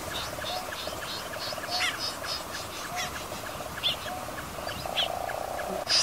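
Recorded snipe calls played as a bird-trapping lure: a quick run of short chirps, about three or four a second, with harsher calls now and then over a steady low trilling.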